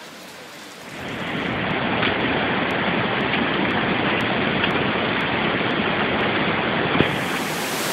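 Floodwater rushing in a swollen stream beside a washed-out road: a loud, steady noise of fast-moving water that comes in about a second in, after a softer hiss.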